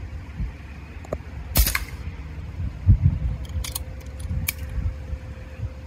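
A single sharp crack from an air rifle about one and a half seconds in. A louder low thump follows about a second later, then a few small clicks, over a steady low rumble.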